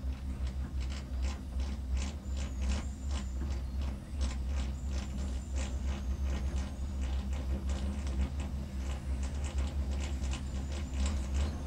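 Gondola cabin of the Genting Highlands cable car in motion, heard from inside: a steady low rumble with irregular clicks and creaks, several a second, and a faint squeak now and then.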